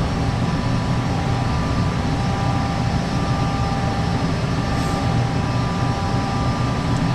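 Gas furnace running steadily: burner and blower noise with a low rumble and a few faint steady tones, firing on a gas supply that has had water in it.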